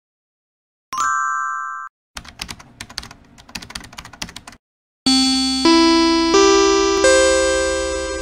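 Title-card sound effects: a single bright ding, then a rapid run of keyboard-typing clicks, then a held musical chord that builds as notes come in one after another.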